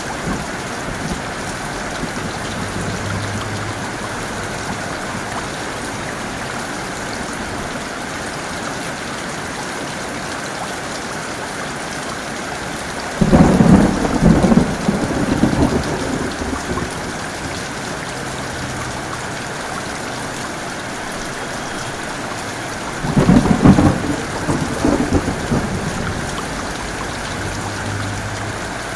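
Heavy rain pouring steadily, with two loud thunderclaps about ten seconds apart, each rumbling on for a few seconds before fading back into the rain.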